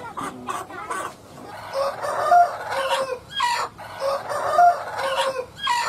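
Desi chickens clucking and calling, with two longer drawn-out calls about two seconds and four and a half seconds in.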